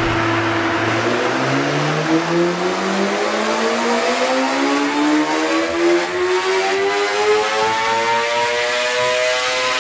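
Kawasaki Ninja ZX-6R's inline-four engine on a dyno, pulling a full-throttle run through one gear: its pitch climbs steadily and smoothly from low revs to about 14,000 rpm, levelling off near the end.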